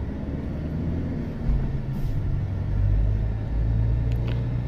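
Car engine and road rumble heard from inside the cabin of a moving car: a steady low hum, with a few faint short ticks about four seconds in.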